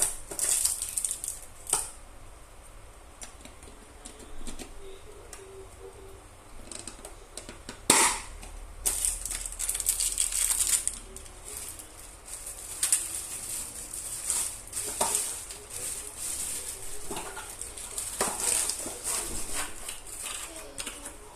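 Packaging being handled and opened: rustling plastic or paper with scattered clicks and knocks, and one sharp click about eight seconds in.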